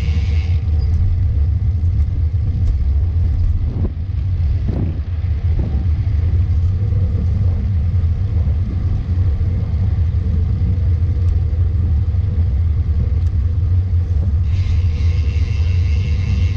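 Wind buffeting the microphone of a camera riding along on a moving road bike: a loud, steady low rumble. A higher buzz stops about half a second in and comes back near the end.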